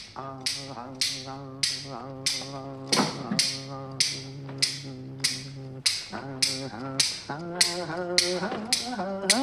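Hand clappers struck at a steady beat of about two clicks a second, the accompaniment of a shulaibao beggar's clapper song. A man sings long, drawn-out wordless notes over the beat, moving up in pitch near the end.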